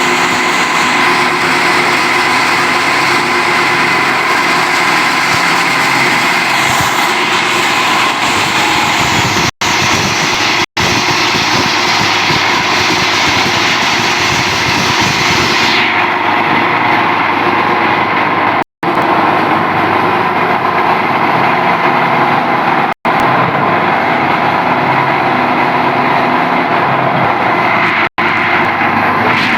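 PET bottle grinder (plastic granulator) running loud and steady, a constant whine over dense grinding noise. The sound drops out for an instant a few times, and the highest hiss fades about halfway through.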